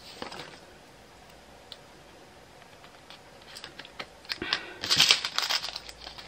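Small plastic clicks and rattles of diamond-painting resin drills, their plastic sorting tray and a clear plastic bag being handled: a few faint ticks at first, then a busy clatter over the last two seconds or so.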